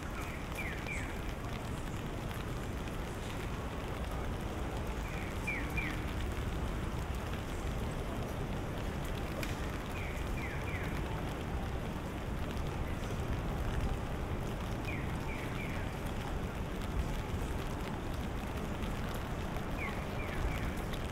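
Steady rain falling, with a short, high triple chirp that repeats about every five seconds.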